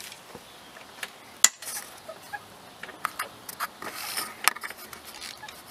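Hand ratchet clicking in short, irregular runs with a few sharp clicks as a cylinder head bolt is loosened.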